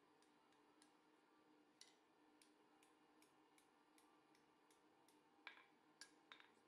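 Faint, light hand-hammer taps on hot iron against the anvil horn, about three a second, as a bar is bent into a scroll. Three sharper strikes come near the end.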